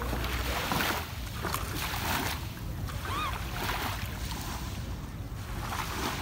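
Small waves lapping and washing onto a sandy shore in soft, irregular swells, with wind rumbling on the microphone.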